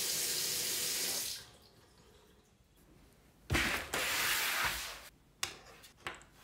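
Tap water running into a bathroom sink, cutting off about a second in. Later a thump with about a second of rustling noise, then two small clicks near the end.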